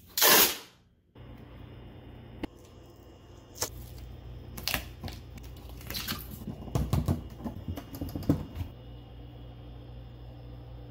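Black tape torn off the roll with a loud rip, then scattered crackling and clicks as strips of tape are handled and pressed onto cabinet doors.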